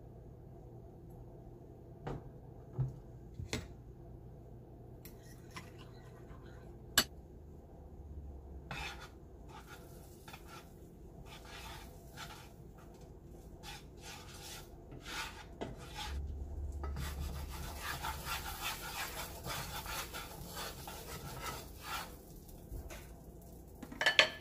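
Slotted spatula scraping and spreading melting butter around a nonstick frying pan: a run of rubbing, scraping strokes that grows busier past the middle. A few sharp knocks come in the first seconds, and a loud clank just before the end.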